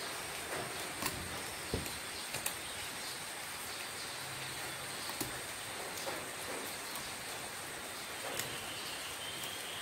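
Scattered light clicks and taps of hands working at the metal head of an old electric water pump, trying to pry it open, over a steady background hiss with a thin high whine.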